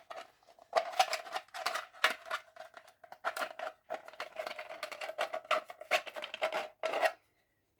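Irregular clicking, tapping and knocking of small hard plastic parts being handled and worked out from inside a 3D-printed PLA boat hull. The clicks stop about a second before the end.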